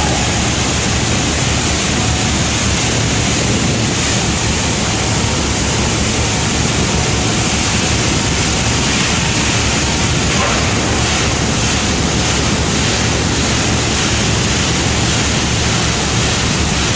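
Steady, loud rushing industrial background noise with a low hum beneath it.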